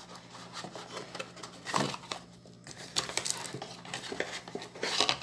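Cardboard packaging handled by hand: the box's inner sleeve rubbed and slid against the cardboard, with several short scrapes and light knocks.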